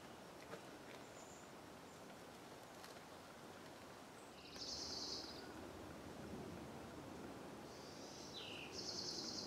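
Faint woodland ambience with a small songbird calling: two short, high, rapidly pulsed buzzy calls, one about halfway through and one near the end, with a brief falling note just before the second.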